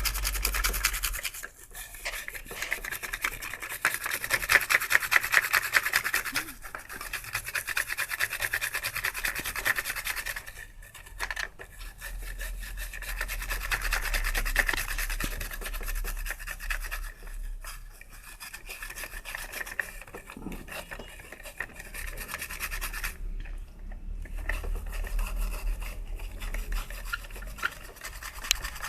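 Scrubbing and rubbing on a radio's circuit board to clean off years of grime with thinner: a fast, continuous scratchy scrubbing, broken by a few short pauses.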